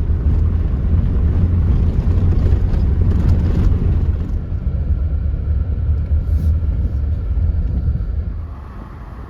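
Low, steady rumble of a vehicle being driven on the road: engine, tyre and wind noise. It gets quieter a little past eight seconds in.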